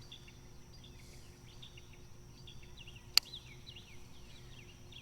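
Faint outdoor ambience of birds calling, a run of short repeated chirps, with a single sharp click about three seconds in.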